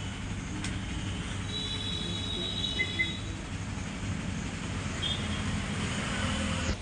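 Steady low rumble of machine-like background noise, with a few brief faint high chirps about halfway through.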